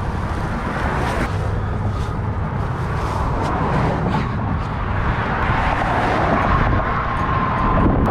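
Highway traffic going by: a steady rumble of motor vehicles and tyre noise that slowly grows louder.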